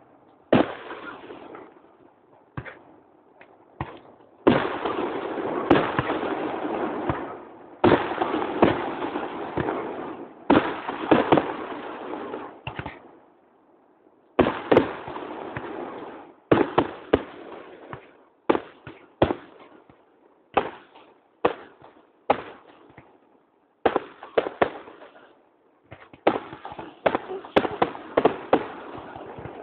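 Fireworks display: aerial shells bursting with sharp bangs, some merging into dense runs of cracking a few seconds long, others single with short gaps between them.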